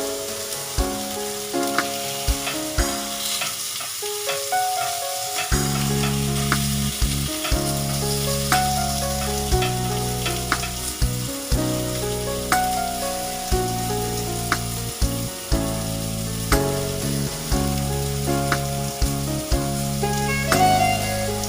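Food sizzling as it fries in a pot, with a utensil clicking and scraping against the pan as it is stirred. Background music with held notes plays underneath.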